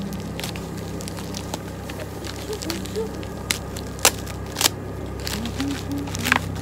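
Plastic mailer bag being torn and pulled open by hand: crinkling with several sharp crackles, the loudest about four seconds in and again near the end, over a steady low hum.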